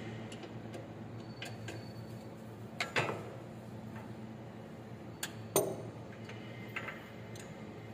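Socket ratchet wrench clicking in irregular strokes while the mounting bolts of a worn bearing's housing are worked loose, with two louder metal clinks about three and five and a half seconds in. A steady low hum sits underneath.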